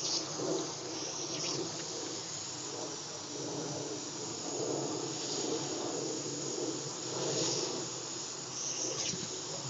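Pop-up lawn sprinkler head spraying water with a steady hiss that swells louder several times, as a dog mouths the nozzle.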